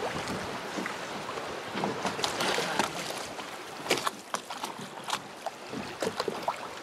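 Water splashing and sloshing around a fishing boat, with irregular sharp splashes and knocks through a steady rush of water and wind.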